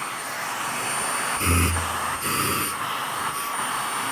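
Bosch Unlimited 7 cordless stick vacuum's handheld motor unit running at high suction with a steady high-pitched whine. The whine lifts slightly twice, about a second and a half in and again near two and a half seconds.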